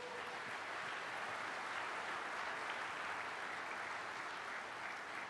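Audience applauding, a steady even patter of many hands clapping, in response to a live software demo that has just worked.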